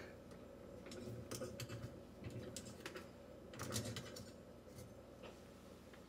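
Faint, scattered plastic clicks and light rattling as the plastic end-stop clip of a Kenmore Ultra dishwasher's upper rack is pressed in and pivoted off the end of the metal rack rail.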